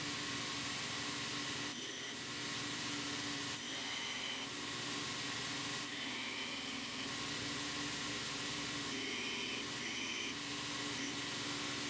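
Belt grinder running with a steady hum as a hardened high-speed steel blade is ground on its belt at the contact wheel. A high-pitched grinding whine comes and goes as the blade is pressed on and eased off, several times.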